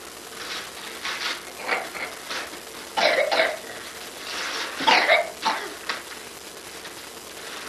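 A person coughing: two loud coughs about two seconds apart, with smaller sounds in between.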